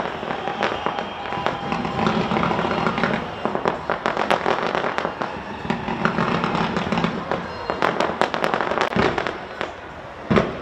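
Fireworks display going off: a dense run of sharp cracks and pops over continuous crackling. The bursts thin out near the end, with one louder bang just before it stops.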